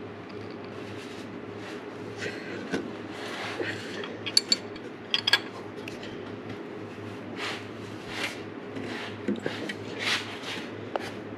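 Wrench working the brass fitting of a coolant temperature sensor: a few sharp metal clicks and several short scrapes as the wrench is turned and reset on the nut, over a steady low hum.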